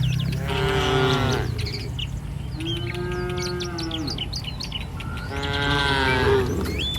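Cattle mooing three times, each call a long pitched low, the middle one held at a steady pitch. Birds chirp in the background.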